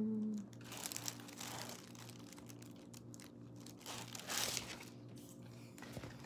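Nylon fabric of a Longchamp Le Pliage bag rustling as it is handled and turned, in two brief swishes about a second in and about four seconds in, with a light click near the end.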